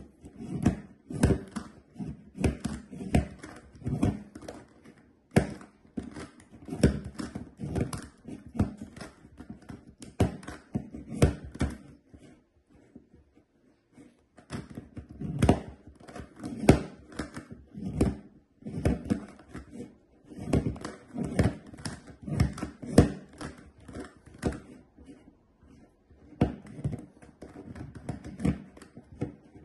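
GAN Megaminx being turned one-handed: quick, irregular plastic clicking and clacking as its faces are twisted, with two short pauses.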